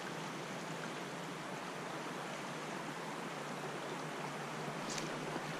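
Steady rush of stream water flowing over a shallow riffle.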